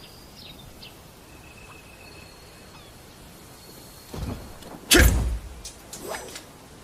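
Oxtail sword sound effects: after a few quiet seconds, a soft blade stroke about four seconds in, then a sharp loud stroke with a low thump about five seconds in and a weaker one a second later.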